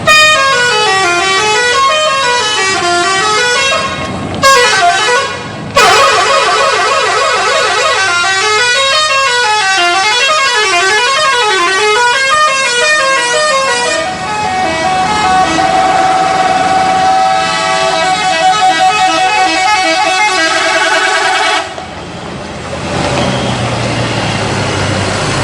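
Bus telolet horn: a multi-tone musical horn on a bus playing a warbling melody whose notes sweep up and down, breaking off briefly twice. It then holds steadier notes, and cuts off suddenly a few seconds before the end, leaving a lower, quieter vehicle sound.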